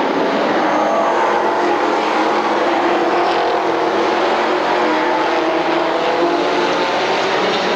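A pack of stock cars racing around a short oval track, many V8 engines running together in a loud, steady drone.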